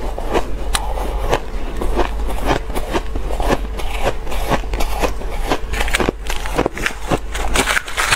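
Mouthfuls of crushed ice being chewed, a dense run of crisp crunches and crackles, along with a metal spoon scraping through the ice in its bowl.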